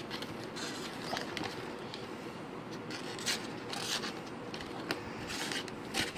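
Stainless-steel knife edge stroked by hand along 1200-grit sandpaper to clean up the bevel: short, irregular scraping strokes, several over a few seconds, over a faint steady hum.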